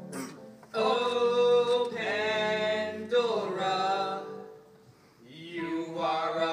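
Two male voices singing a show tune together, holding long notes; the singing falls away briefly about four and a half seconds in, then picks up again.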